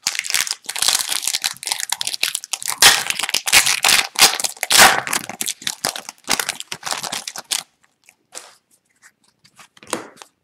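Foil wrapper of an Upper Deck Extended Series retail hockey card pack being torn open and crinkled by hand, a dense crackling rustle that stops about three-quarters of the way through. After that only a few faint ticks of the cards being handled.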